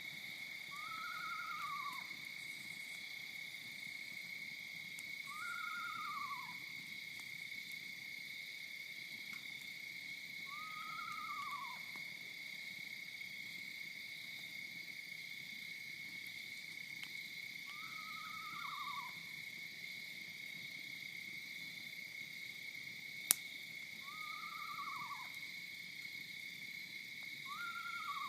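An animal's high whistled call, about a second long, rising slightly and then falling, repeated six times at uneven gaps of a few seconds. Under it runs a steady high hum, and there is a single sharp click about 23 seconds in.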